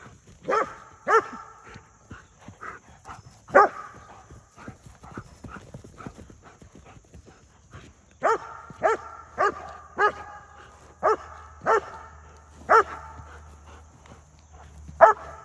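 A dog barking in short single barks, about eleven in all: a few near the start, a run of quick barks from about eight seconds in, and one more near the end. A horse's hoofbeats sound faintly between the barks.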